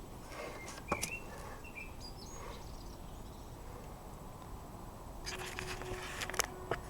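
Quiet workshop with a few faint bird chirps about a second in, and scattered light clicks and taps, a cluster of them in the last second and a half.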